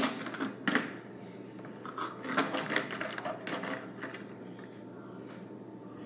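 Craft materials being handled at a cardboard box: quick bursts of scraping, rustling and clicking in the first second and again from about two to three and a half seconds in, then only faint handling.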